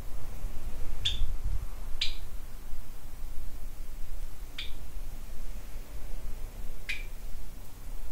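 A small caged pet bird giving four short, sharp chirps, a second or two apart, over a low steady rumble.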